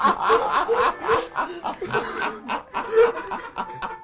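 Two men laughing hard together, their laughter coming in repeated bursts of ha-ha-ha.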